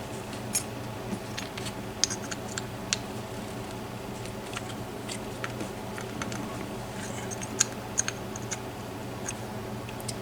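Light, irregular metallic clicks and scratches of small tools working on a padlock as it is being taken apart, with a few sharper clicks, over a steady low hum.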